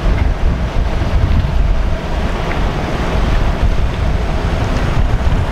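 Wind buffeting the microphone in uneven gusts, over the rush of choppy sea water.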